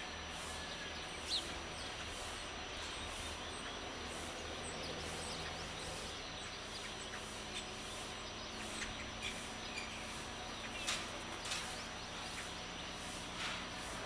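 Dawn outdoor ambience: small birds chirping here and there over a steady background hum, with a sharp chirp about a second in and more frequent calls in the second half.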